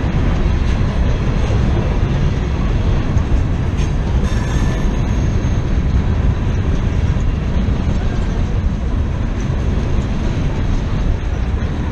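Freight train's boxcars and hopper cars rolling past close by, a steady rumble of steel wheels on the rails.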